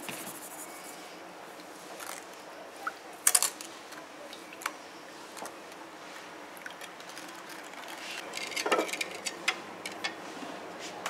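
A spoon stirring custard powder and sugar into water in a bowl, with scattered clicks and scrapes of the spoon against the bowl. The sharpest are a couple of quick taps about three seconds in, and a busier run of clinks and scraping comes around eight to nine seconds.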